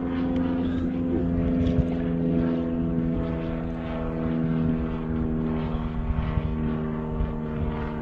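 A steady engine drone holding one pitch, with wind rumbling on the microphone underneath.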